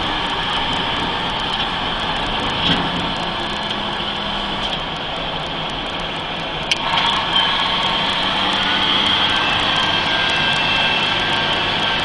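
Mercedes-Benz 3340 truck's diesel engine running steadily with a high turbocharger whine over it; the turbo sound is the fault being tested. A sharp click comes about seven seconds in, and a thin steady whistle joins shortly after.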